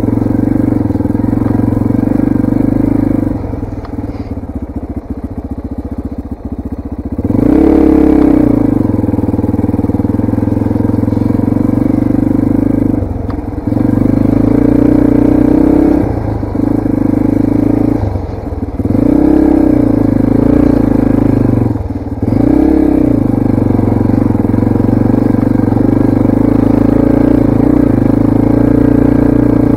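Yamaha TT-R230 dirt bike's single-cylinder four-stroke engine under way, pulling at steady throttle. It eases off for a few seconds, then revs up sharply, with several short drops and re-revs before settling into a steady run.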